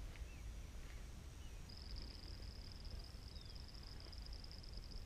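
Faint outdoor wildlife sound: insects trilling in one steady high tone that swells up about two seconds in, with a few short, faint bird chirps over a low rumble.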